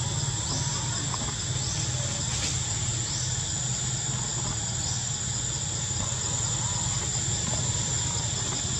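Steady high-pitched drone of forest insects, with a few short rising chirps in the first five seconds, over a low steady rumble.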